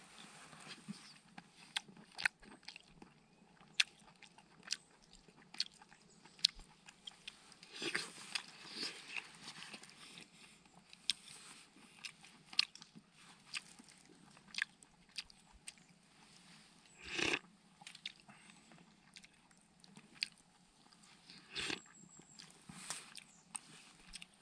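A person chewing short rib meat and rice: irregular sharp clicks and smacks of the mouth, with a few louder bursts scattered through.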